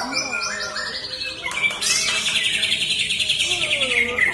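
White-rumped shama singing: a varied run of whistles and quick trills, then a long, rapid trill held for about two seconds, falling slightly in pitch near the end.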